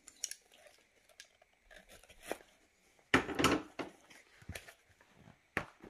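Cardboard kit box being worked open by hand: scattered taps and scrapes of the card, with a louder rustling scrape of card and packaging about three seconds in.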